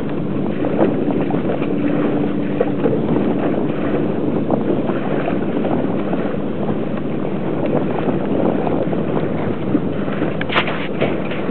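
Wind buffeting the microphone over the wash of water along a small sailboat under way, a steady rushing noise. A single sharp knock comes near the end.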